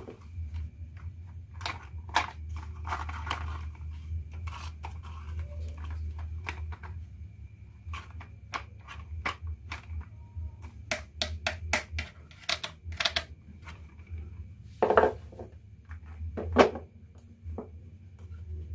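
Marbles clicking and clacking as they roll down a wooden marble run, with a quick even run of clicks about two-thirds through and two louder knocks near the end.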